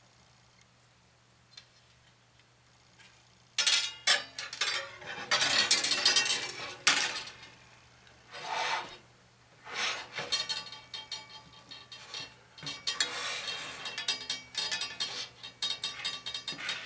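Rubbing and scraping handling noise in irregular bursts, starting a few seconds in, from hands working the metal machine screws, washers and rod elements on a wooden antenna boom.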